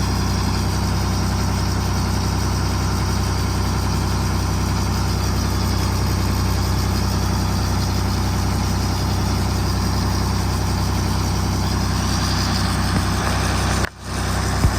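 A 125B excavator's diesel engine idling steadily, with one brief dip in loudness near the end.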